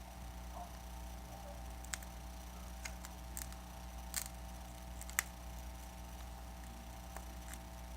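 A few sharp, sparse clicks of plastic pry tools and picks working around a Samsung Galaxy S5's glued screen as it is pried loose, over a steady low hum.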